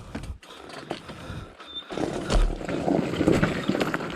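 Trail motorcycle riding over rough ground: a fairly quiet start with a few knocks, then about two seconds in a loud, uneven rumble of engine and rattling.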